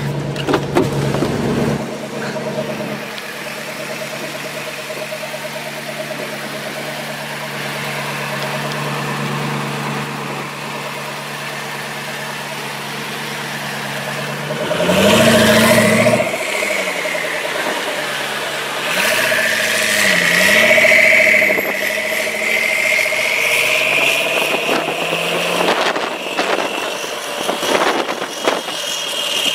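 Supercar engine in traffic, heard from inside a following car. It runs at a low steady drone at first, then revs sharply about halfway through. Several more revs and blips follow, with a whine that rises in pitch as the car pulls away.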